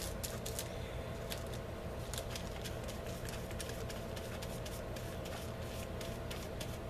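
Soft scattered ticks and light scraping as a flat paintbrush dabs and brushes gloss medium over paper cut-outs on an index card, over a steady low background hum.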